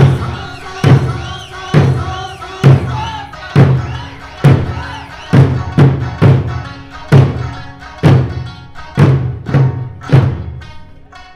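Eisa drumming: large Okinawan barrel drums struck together in a steady beat a little faster than once a second, over Okinawan folk music with singing and plucked sanshin. The drum beat stops shortly before the end.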